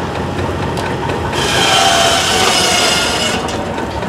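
Steam-traction-engine-driven shingle mill running, its saw cutting through a wooden block for about two seconds, starting about a second in, over the steady noise of the machinery.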